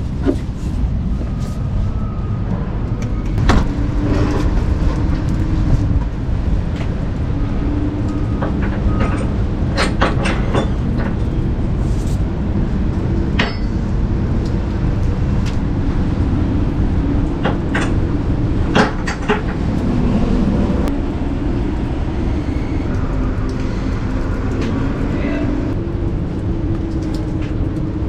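Lorry running, a steady low rumble with scattered sharp clicks and knocks.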